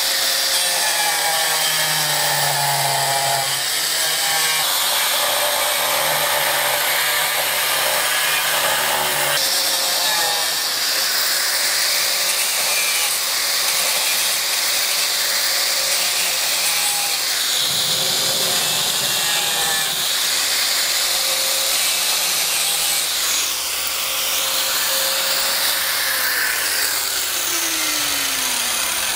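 Angle grinder with a cutting wheel cutting back the plastic ribs of a riser around a drilled hole: a loud, steady grinding run. Near the end the grinder is switched off, and its pitch falls steadily as the wheel winds down.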